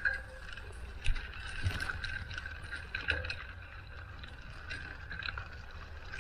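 Riding a bicycle: wind rumbling on the microphone, with scattered clicks and rattles from the bike, the sharpest about a second in.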